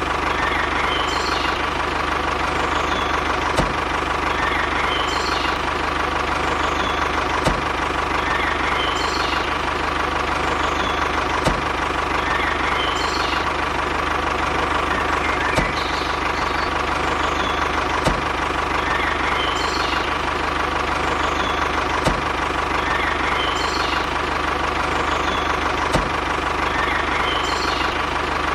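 An engine idling steadily, with a sharp knock about every two seconds.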